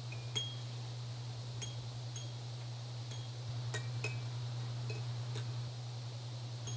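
Strings of an electric guitar plucked up at the headstock, giving short, high, tinkly pings, about ten of them spaced unevenly, over a steady low hum.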